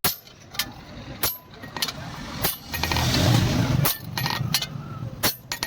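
Hand hammer striking leaf-spring steel on an anvil: a string of sharp metallic blows at uneven intervals. About two and a half seconds in, a louder rushing noise with a low rumble rises for just over a second and then drops away.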